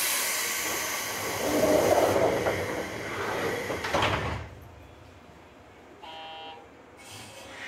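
JR West 201 series train doors closing: a loud hiss of air from the pneumatic door engines, ending as the doors shut with a thud about four seconds in. A brief tone follows about two seconds later, then another short hiss of air near the end.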